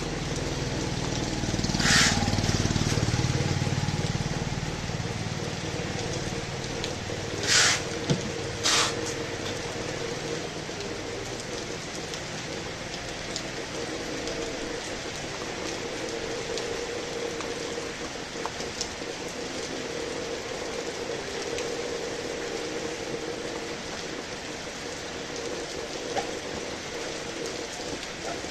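Heavy rain falling steadily with a continuous hiss. A low rumble swells and fades in the first few seconds, and three short loud hissing bursts stand out, the last two close together.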